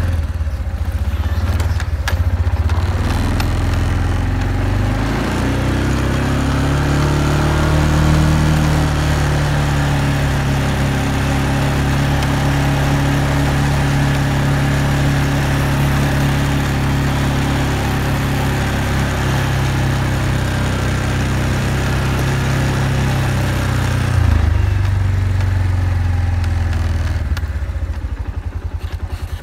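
ATV engine picking up speed about five seconds in, then running steadily at cruising speed. About 24 seconds in it eases back to a lower note.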